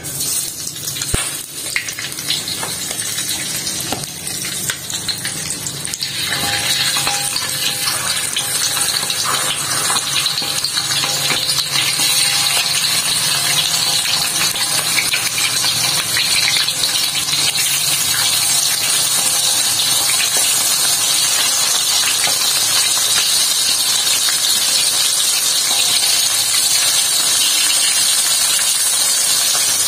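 Small river fish (wader and uceng) deep-frying in hot oil in an aluminium wok: the oil sizzles, thinly at first with a few clicks of a metal spoon against the pan, then building from about six seconds in to a steady, dense sizzle as the wok fills with fish.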